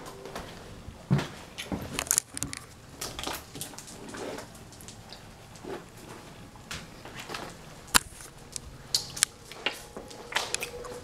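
Handling noise from a handheld camera being carried and moved: irregular rustles, bumps and clicks, with one sharp click about eight seconds in.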